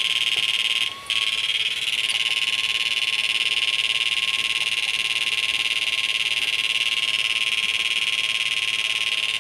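Homemade mini-MOSFET flip-flop circuit running under load, giving a steady high-pitched electrical buzz with a thin, steady whistle tone through it. The buzz briefly dips about a second in.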